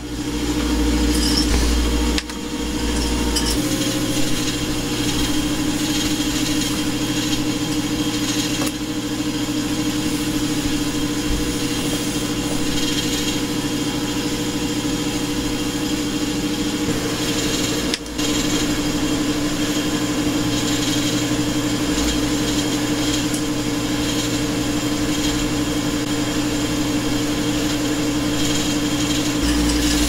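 Harman pellet stove's blowers running with a steady hum during its ignition start-up, before the fire has caught. The hum drops out briefly twice.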